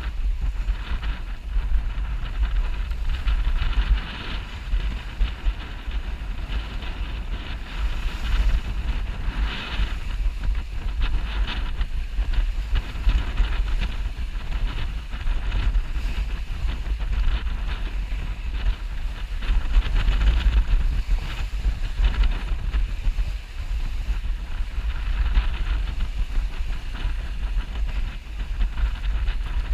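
Wind buffeting the microphone on a sailboat under way: a low rumble that rises and falls in gusts, over a steady rushing hiss.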